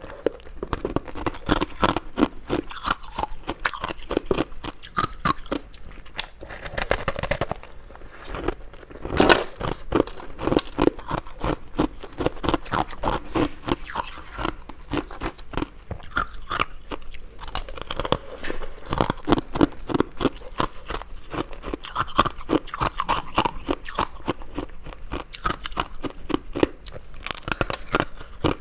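A person biting and chewing ice up close, a continuous run of crisp, crackling crunches with a louder bite about a third of the way in.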